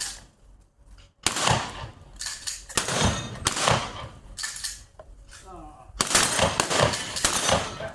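A rapid string of shotgun shots fired at steel plate targets, with the plates clanging as the shot strikes them. The shots start about a second in and come faster near the end.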